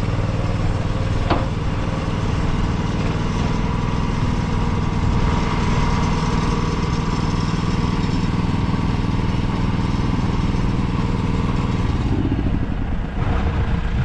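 An engine runs steadily, driving a Tubeline in-line bale wrapper as it wraps round haylage bales, with one sharp knock about a second in.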